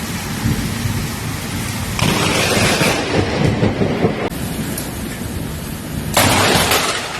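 Heavy rain and thunder, the sound changing abruptly several times; about six seconds in, a sudden louder burst of noise.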